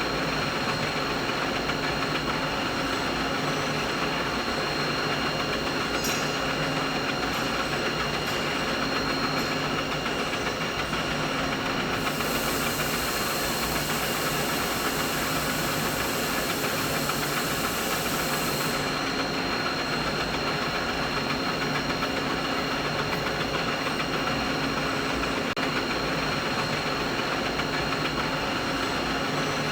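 Steady machinery hum: an even mechanical noise with several constant tones running through it. About twelve seconds in a high hiss joins it, then stops about seven seconds later.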